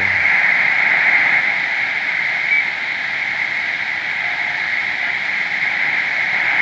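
Steady band-noise hiss from a BITX multiband transceiver's speaker in upper-sideband receive as it is tuned down across an empty 10-metre band. A brief short whistle from a carrier passes about two and a half seconds in.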